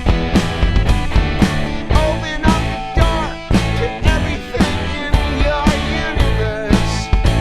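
Rock band playing, with distorted guitar and bass over a steady drum beat of about two hits a second.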